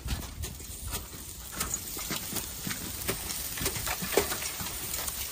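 Snow crunching and being packed onto the burning wreck of an IZh motorcycle to put out the fire, a run of irregular knocks and crackles.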